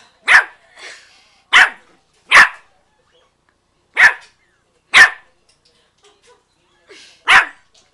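Four-month-old Yorkshire Terrier puppy barking playfully: six short, sharp barks spaced unevenly, with the longest pause before the last one.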